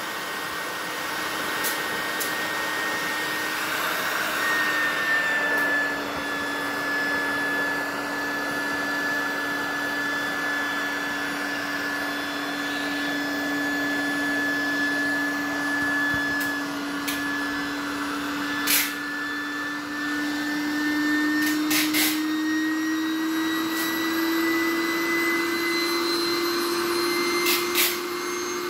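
Electric air pump running steadily as it inflates a vinyl paddling pool, its whine rising slightly in pitch in the second half. A few sharp clicks sound over it.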